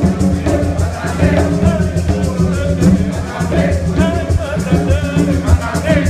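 Live bomba music: barril drums, barrel-shaped skin drums, played by hand in a fast, steady rhythm, with voices singing over them.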